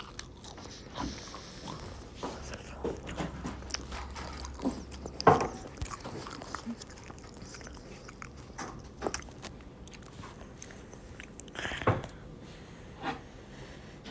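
Irregular small clicks and taps close to the microphone, with a louder knock about five seconds in and another near twelve seconds.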